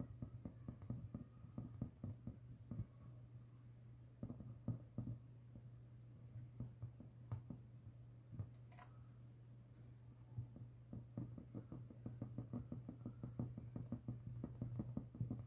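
Close handling noise from hands and tools working on a small loudspeaker: many soft, low taps and clicks in irregular flurries, with a couple of sharper clicks midway, over a steady low hum.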